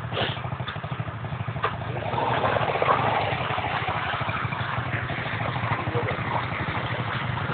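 ATV (quad bike) engine running as the quad drives through muddy water, getting louder about two seconds in.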